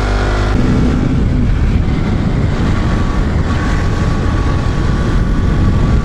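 Motorcycle being ridden. A steady engine hum is clear for about the first half second, then a dense low rush of wind and road noise covers it.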